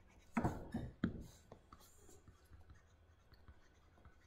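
Stylus writing on a tablet screen: three short taps and scratches within the first second or so, then faint ticks of smaller strokes.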